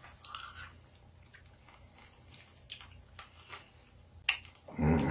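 A hard sour candy being eaten: faint mouth and chewing sounds with a few sharp clicks, the loudest about four seconds in, then a short low vocal sound right at the end.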